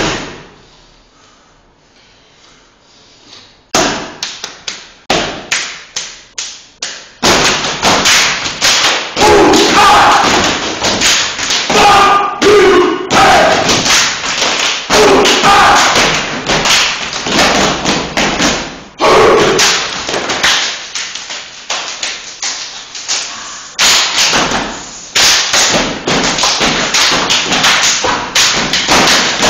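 Step team stomping in unison on a hard floor: a few scattered stomps about four seconds in, then a dense, loud run of rhythmic stomps and slaps from about seven seconds on, with shouted chanting from about nine to twenty seconds.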